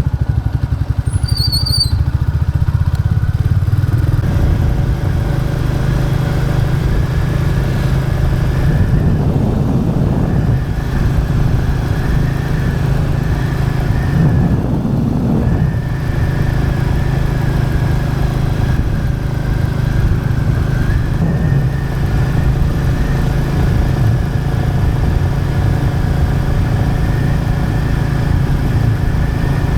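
Royal Enfield Classic 350's single-cylinder engine running steadily while the motorcycle is ridden.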